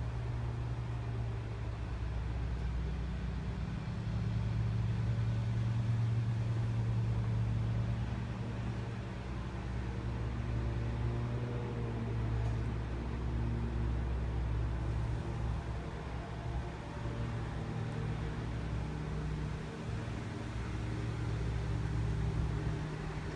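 Steady low mechanical hum with a few constant low tones, swelling a little about four seconds in and easing again a few seconds later.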